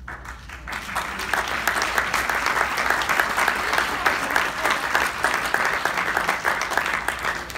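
Audience applauding, a dense patter of many hands clapping that starts suddenly, swells over the first second, holds steady, and tapers off near the end.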